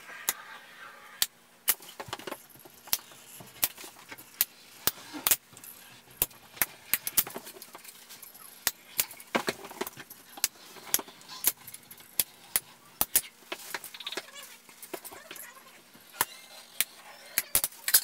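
Manual caulking gun clicking sharply and irregularly, about two clicks a second, as its trigger is squeezed over and over to push silicone caulk into a joint.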